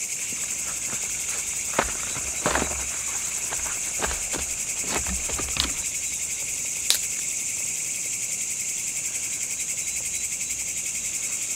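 Steady, high-pitched chorus of night insects, with a few sharp clicks and snaps of sticks being handled in the first seven seconds.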